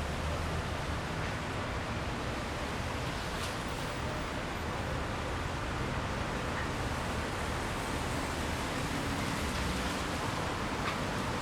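A steady rushing noise with a low hum underneath, and a couple of faint ticks.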